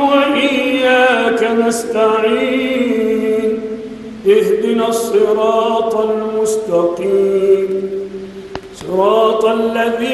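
A man's voice chanting in long, melismatic phrases with held, wavering notes, pausing briefly about four seconds in and again about eight and a half seconds in.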